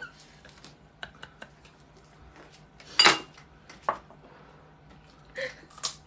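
Chopsticks and bowls clinking at a dinner table: scattered light clicks and knocks, the loudest a sharp clatter about three seconds in.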